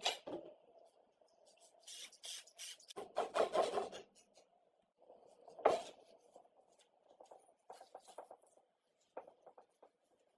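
Hand work on parts of an old rusty sewing machine: scraping and rubbing with scattered small clicks, a longer scraping stretch about three seconds in, and a single sharper knock near the middle.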